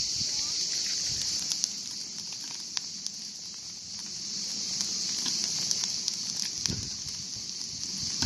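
Dried fish grilling on a metal plate over a wood fire: scattered crackles and pops over a steady high-pitched hiss, with a couple of dull knocks near the end.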